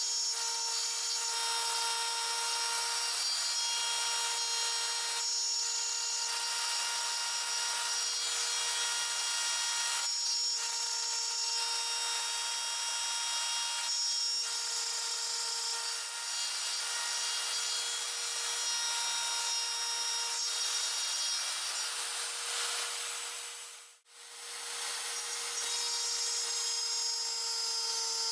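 Biltema wood router serving as the spindle of a homemade CNC mill, running at high speed with a steady whine while its small bit grinds into the wood of a sign and throws out chips. The sound drops out for a moment about three-quarters of the way through, then resumes unchanged.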